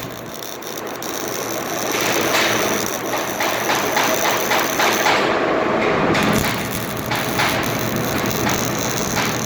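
Metalworking shop noise: a steady hiss with a run of sharp clicks and clatter, at times in an even rhythm of a few clicks a second.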